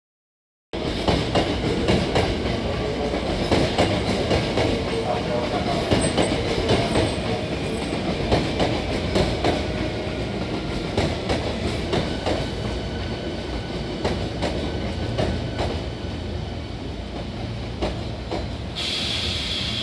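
Hankyu 9000 series electric train pulling out of the station, with a steady rumble and its wheels clacking over the rail joints. A hiss comes in near the end.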